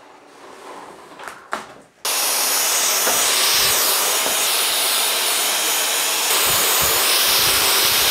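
Cordless stick vacuum switched on about two seconds in, then running steadily with a loud hiss and a thin high whine as it is passed over a wooden tabletop. A couple of light knocks come just before it starts.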